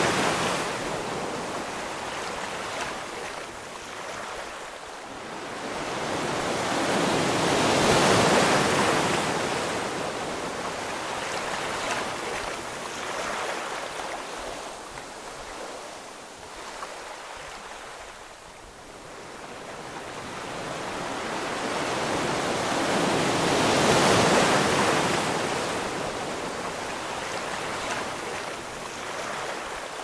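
Ocean waves washing in slow swells, a steady rush of surf that rises and falls over several seconds. One wave peaks right at the start, another about eight seconds in and a third about twenty-four seconds in, with a softer lull between.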